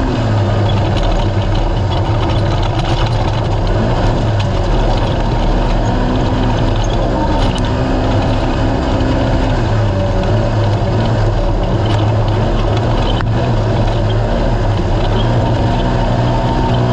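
Naturally aspirated race UTV engine running hard, its note rising and falling, over a steady rushing noise, with a couple of sharp knocks.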